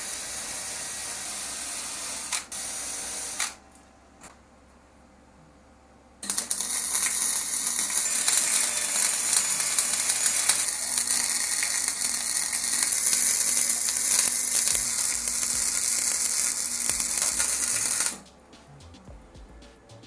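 A cordless drill spinning a wire brush against steel for about three and a half seconds, cleaning a weld. After a short pause, a flux-core wire-feed welder arcs with a steady crackling sizzle for about twelve seconds, then cuts off.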